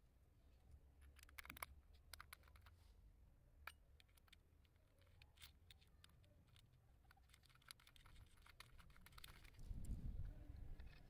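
Faint scattered clicks and small taps of a thin metal disc and a plastic earbud case being handled and fitted together, with a metal nut tightened by needle-nose pliers near the end. A short low rumble near the end.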